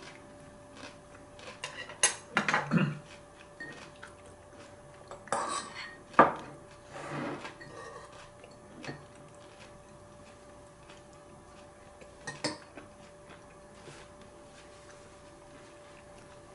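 Metal chopsticks and utensils clinking and scraping against dishes during a meal. Sharp clinks come at about two, six and twelve seconds in, with short scrapes between them, and then it goes quieter, with a faint steady hum underneath.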